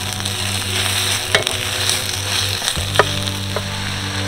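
Food sizzling in a frying pan, with a few sharp taps or clicks about a second and a half and three seconds in.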